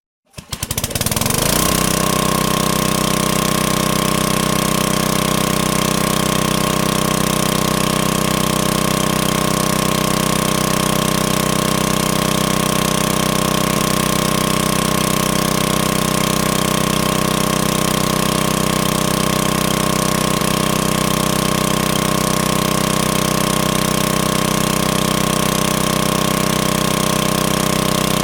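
Electric generator running steadily: a constant engine drone with a steady whine, fading in over the first second or two.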